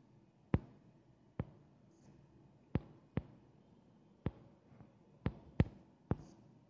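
About eight sharp, short knocks at irregular intervals over a faint hush, with two or three of them close together near the end.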